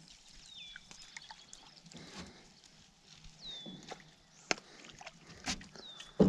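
A bird calls three times, about three seconds apart, each call a short note sliding down to a steady high pitch. Scattered clicks and knocks run underneath, with a louder sharp knock near the end, and there is light water sloshing.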